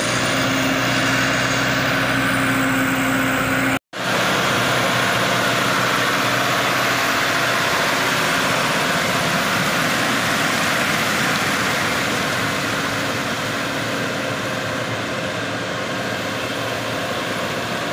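105-horsepower rubber-tracked tractor's diesel engine running steadily under load as it drags a rotary tiller through a flooded, muddy paddy, its tracks churning the mud. The sound drops out completely for a moment about four seconds in.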